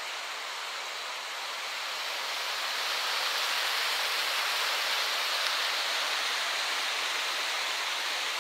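Rushing floodwater of a small brook swollen by a thunderstorm: a steady noisy rush of water that grows louder about two seconds in.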